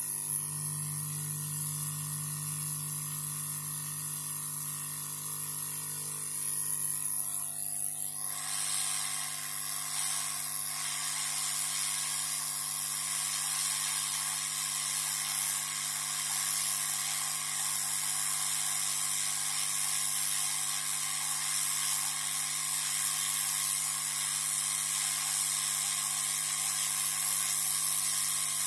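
Hot-air rework station blowing a steady hiss of air over the motherboard to desolder a surface-mount chip, with a low hum under it for the first seven seconds or so.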